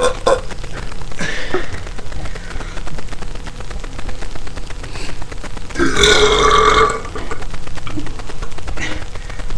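A man burping deliberately, over and over: short burps near the start and a long, loud belch about six seconds in that lasts about a second.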